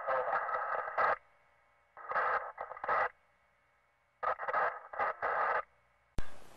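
Thin, radio-like sound in bursts about a second long with pauses between them, as if heard through a small radio speaker. A sharp click comes near the end.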